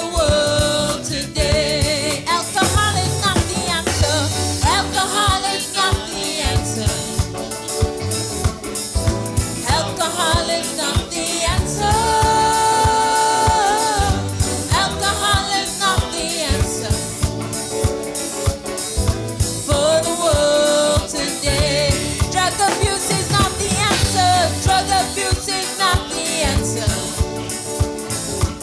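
Gospel praise song with a singing voice over a band, with a drum kit keeping a steady beat under a bass line.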